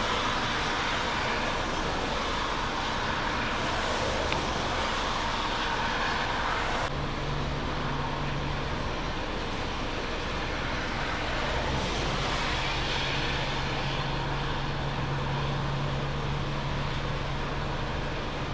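Steady rushing noise of jet airliners at the runway, with a low steady hum joining about seven seconds in.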